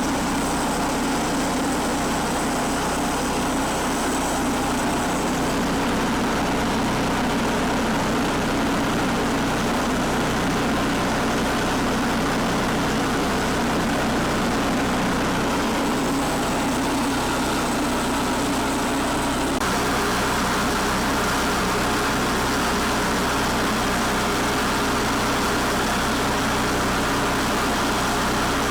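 Sawmill engine running steadily while milling a red oak log into boards, its sound shifting slightly about twenty seconds in.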